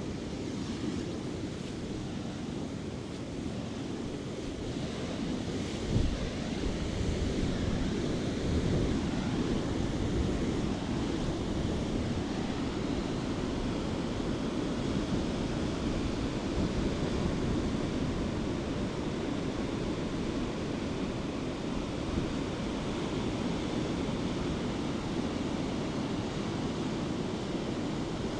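Atlantic surf breaking and washing up a sandy beach in a steady rush, with wind on the microphone. There is a brief low thump about six seconds in.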